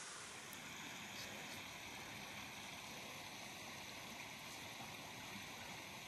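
Faint, steady rushing hiss of outdoor background noise, with no distinct events.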